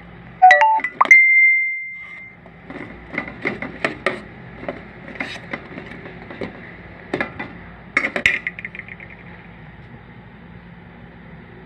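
A cooking utensil clinking and scraping against the metal inner pot of a rice cooker as it turns sweet potato slices frying in butter. Two loud ringing clinks about half a second in are followed by a steady high tone for about a second, and a quick rattling run of clicks comes near the end.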